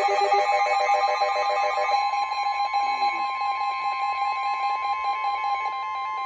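Emergency Alert System attention tone: a loud, steady electronic alert signal. For the first two seconds it is layered with other pulsing tones, then settles into a steady two-note tone.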